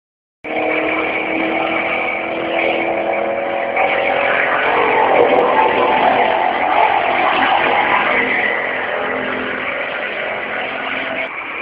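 A loud, unexplained droning sound of the kind circulated as the 'strange sound' over Kota Samarahan: several steady held tones over a dense rumbling noise, starting abruptly and going on without a break.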